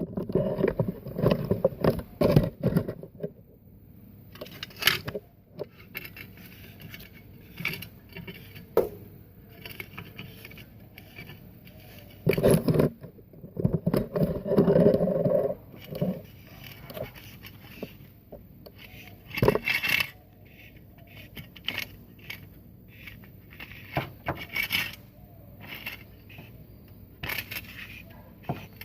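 Irregular scraping and clanking of a manual car jack being handled and set in place under the car, with scattered knocks and clicks, loudest in the first few seconds and again about halfway through.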